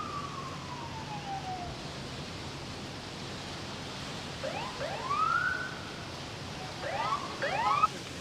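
Emergency vehicle siren: a wail falling in pitch over the first two seconds, then rising-and-falling sweeps about halfway through and again near the end, over steady background noise.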